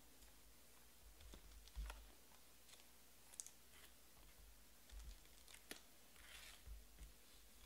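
Faint, irregular clicks and taps mixed with a few low knocks, and a short rustle near the end.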